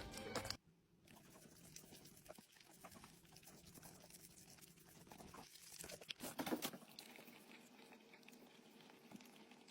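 Faint, scattered pattering and light rustling, with a short louder rustle about six seconds in; a snatch of music cuts off just after the start.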